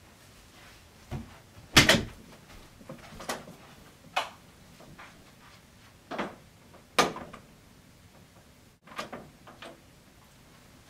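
Household doors and cupboards being opened and shut: a string of sharp knocks and clunks at uneven intervals, the loudest just before two seconds in, with a few lighter clicks near the end.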